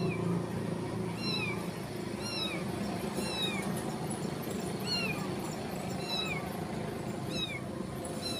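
Hungry kittens mewing again and again: about eight short, high-pitched calls that slide down in pitch, roughly one a second, over a low background rumble.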